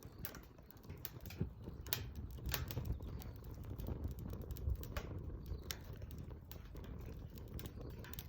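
Wood fire crackling: irregular sharp pops and snaps over the low steady rush of the flames.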